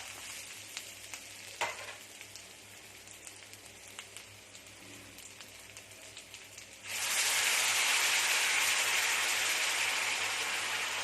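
Food sizzling in a hot pan, a stir-fry of kale with crispy pork, with a few sharp clicks from a utensil against the pan. About seven seconds in, the sizzle suddenly jumps much louder and stays loud.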